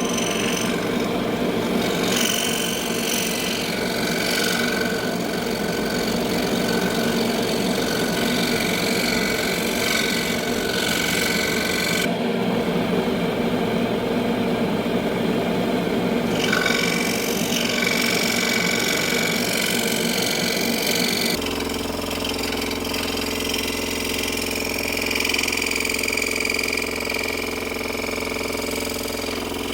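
Scroll saw running, its blade cutting through wood with a steady rapid chatter. About two-thirds of the way in the sound changes abruptly to a steadier motor hum.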